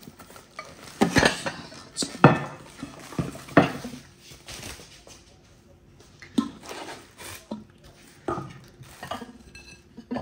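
Porcelain plates clinking and knocking against each other and a plastic cake dome as they are handled and taken out of their packaging: a few irregular sharp knocks, the loudest in the first few seconds.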